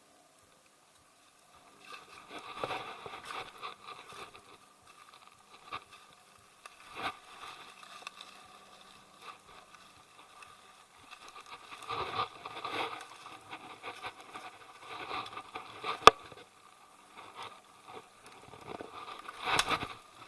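Irregular footsteps and scuffing on a rough, steep hiking trail, in uneven clusters, with a sharp click about sixteen seconds in.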